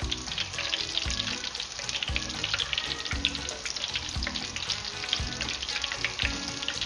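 Hot oil crackling and sizzling steadily as sesame-coated seafood toasts deep-fry in a saucepan, with background music with a steady beat about once a second.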